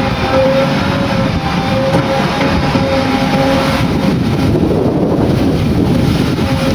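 JCB 3DX backhoe loader's diesel engine running steadily, with a constant whine above the engine noise.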